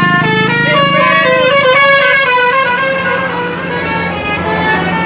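Bus telolet horn, a multi-tone musical air horn, playing a quick tune of stepped notes, often several at once, over a steady low engine hum.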